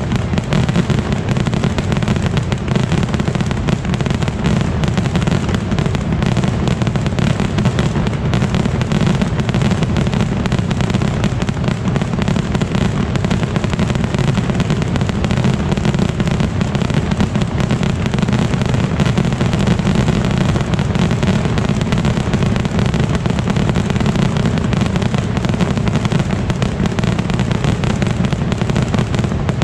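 A massed barrage of firework rockets launching and bursting without pause, the bangs so close together that they merge into one deep, unbroken din.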